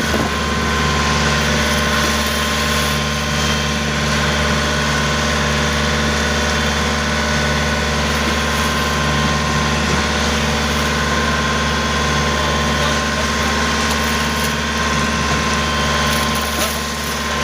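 A tour boat's engine running steadily, a constant hum with no change in pitch.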